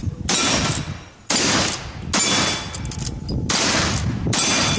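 Black-powder rifle fired in quick succession, about five shots roughly a second apart, each with a long echoing tail and steel targets clanging.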